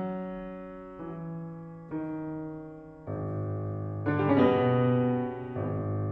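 Grotrian-Steinweg grand piano playing slow, sustained chords, struck about once a second and each left to ring and fade, with a louder, brighter flurry of notes about four seconds in.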